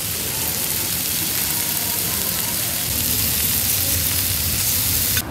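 Beef slices and rice sizzling loudly on a hot cast-iron plate, a dense steady hiss that cuts off suddenly near the end.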